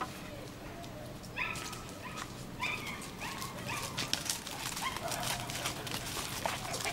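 German Shepherd puppies giving short, high-pitched yelps and whimpers, about five over several seconds, each falling in pitch. Light clicking and rustling joins them in the second half.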